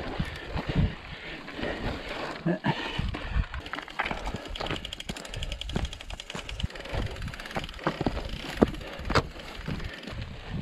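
Mountain bike ridden fast down rough dirt singletrack: the bike rattles and clatters over bumps and roots, with tyre noise and wind rumble on the microphone. A burst of rapid, even ticking from the bike comes about five seconds in.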